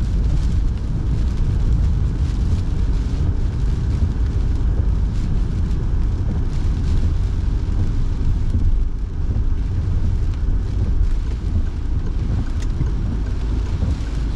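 Inside a moving car's cabin: steady low rumble of engine and tyres on a wet road, with the heater fan blowing.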